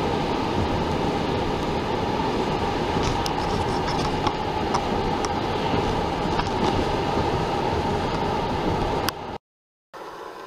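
Steady road and wind noise of a moving car heard from inside the cabin, with a few faint clicks about halfway through; it cuts off suddenly near the end.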